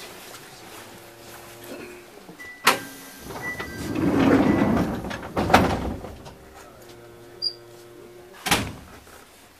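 Sliding doors of a stationary Chichibu Railway 1000 series electric train working at a station stop. Three sharp knocks, about three seconds apart, and a loud rush of air between the first two sound over the steady hum of the standing train's on-board machinery.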